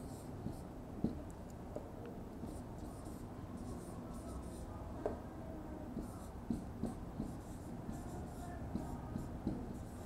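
Marker writing on a whiteboard: short scratchy, squeaky strokes with a few light taps as letters are formed.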